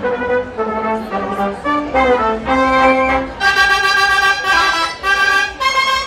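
Live band music: brass instruments playing a melody over an upright double bass, the brass growing brighter and louder about halfway through.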